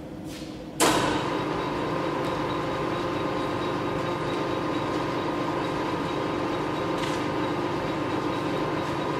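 Ernault Somua Cholet 550 lathe spindle starting up suddenly about a second in, then running steadily with its three-jaw chuck spinning: a steady machine hum carrying several held tones from the headstock drive.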